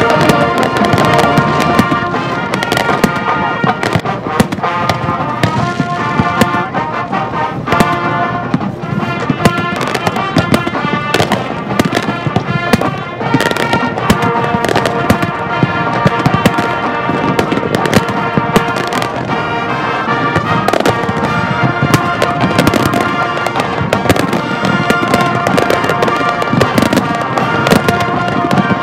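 Aerial firework shells bursting again and again, the bangs coming thick and fast, with music playing throughout.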